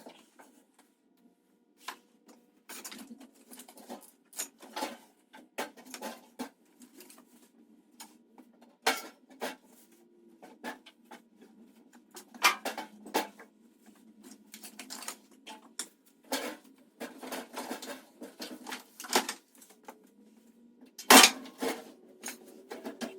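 Irregular metallic clinks and clanks of tools and hardware being handled while the table saw is assembled, with the loudest knock about 21 seconds in.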